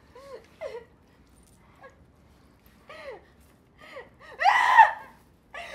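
A person's distressed vocal cries: short whimpering sobs, then a loud, high-pitched cry about four and a half seconds in.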